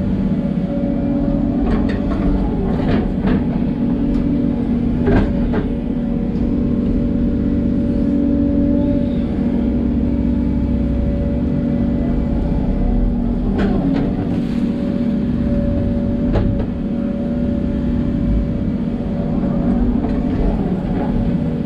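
Hidromek 140LC crawler excavator working: the diesel engine runs steadily under load with a high steady tone over the drone. Several sharp knocks and clunks come from the working machine, the clearest about five seconds in and again around fourteen and sixteen seconds.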